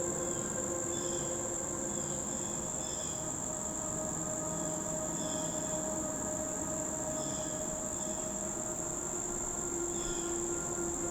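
Insect chorus: a steady high-pitched trill that never breaks, with shorter chirps repeating about once a second, over a faint steady low hum.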